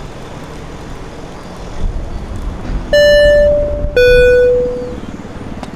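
Two loud beeps: a short higher one about three seconds in, then a lower, longer one a second later that fades out, over a low rumble.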